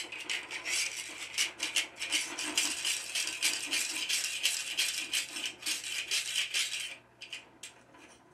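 Hand-forged steel dividers rattling as their red-hot riveted pivot joint is worked rapidly back and forth, the legs and collar clicking several times a second; this frees up the freshly riveted joint. The rattling stops about seven seconds in, leaving a few scattered clicks.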